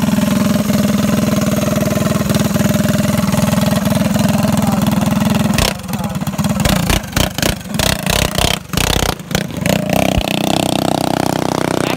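Small single-cylinder minibike engine running steadily. About six seconds in the sound turns choppy and uneven for a few seconds, then a steady engine hum at a higher pitch resumes near the end.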